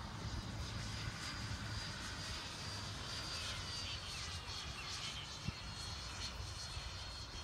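The 105 mm electric ducted fan of an HSD F-16 Thunderbird RC jet on a 12S battery, flying high and distant: a thin high whine over a rushing hiss. The whine eases slightly down in pitch midway.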